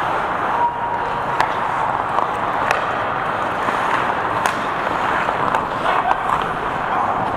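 Hockey skate blades scraping and carving the ice in a steady hiss, with a few sharp clicks of sticks and puck.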